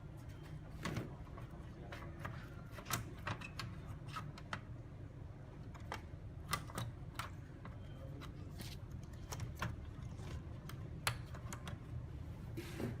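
Scattered light clicks and taps, uneven in timing, over a steady low hum: small tools and plastic or metal parts being handled during the monitor repair.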